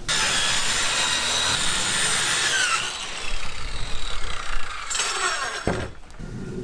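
Corded circular saw cutting through a sheet of plywood, its pitch falling as the blade winds down about three seconds in. Then knocks and scraping of the plywood strips being handled.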